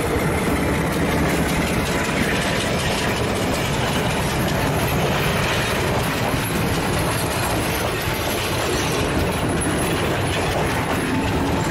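A diesel-hauled passenger train passing close by: the locomotive's engine runs as it goes past, then a string of coaches rolls by with steady wheel-on-rail noise.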